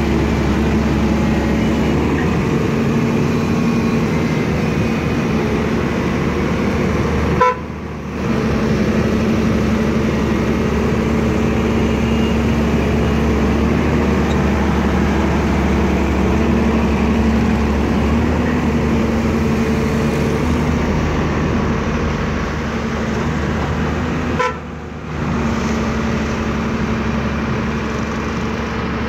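Caterpillar 320C excavator's diesel engine and hydraulics running steadily while it digs wet mud, a constant pitched drone. It breaks off briefly twice, about a third of the way in and near the end.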